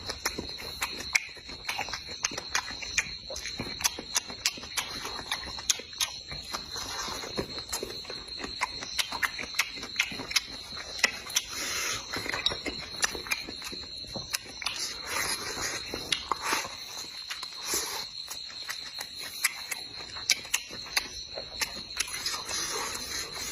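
Close-up mukbang eating sounds: chewing fried small fish, with many sharp crunchy clicks and mouth smacks at an uneven pace. Behind them a steady high chirr of crickets runs without a break.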